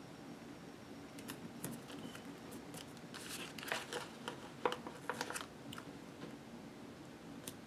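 Hands handling a vinyl washi-strip sticker and sticker sheet on a planner page: faint crinkling and small ticks as the strip is pressed down, busiest in the middle of the stretch.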